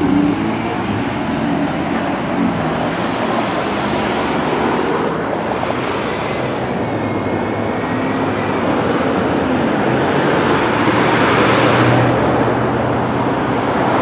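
Road traffic: cars driving across the railroad crossing, with engines accelerating away, making a steady traffic noise.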